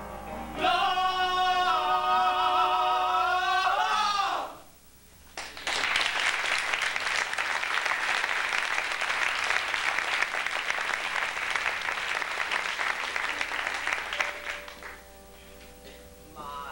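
Two male voices hold the final sung note of a stage-musical number for about four seconds and cut off. After a short pause, audience applause follows for about nine seconds. Near the end, soft sustained instrumental notes begin the next number.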